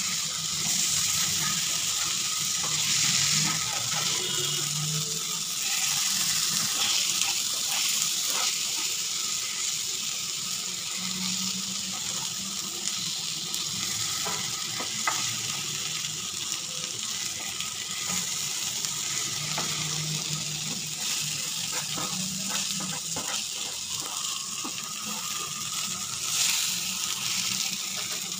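Fish pieces in a green herb marinade sizzling steadily as they fry in oil on a hot flat tawa. A spatula scrapes and taps against the pan now and then as the pieces are turned.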